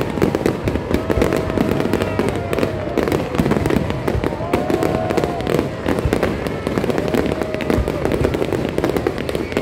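Fireworks display going off in a rapid, continuous barrage of bangs and crackling, with no let-up.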